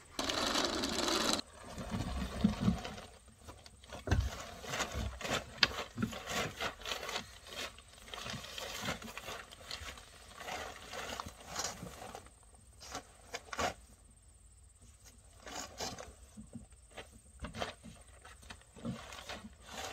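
Crinkling and rustling of a plastic ground sheet, with irregular scrapes, clicks and a few hollow knocks from a molded plastic layout duck boat as it is tipped up on its end and flipped over. A brief burst of rushing noise at the very start.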